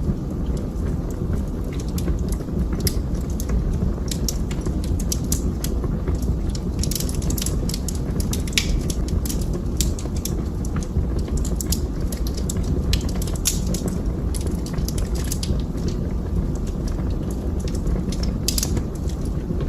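Wood fire burning in a fireplace, with frequent irregular crackles and pops over a steady low rumble.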